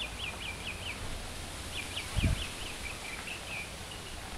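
A small bird singing: two quick runs of short, high, downward-sweeping notes, over a steady outdoor background. A brief dull low thump about two seconds in.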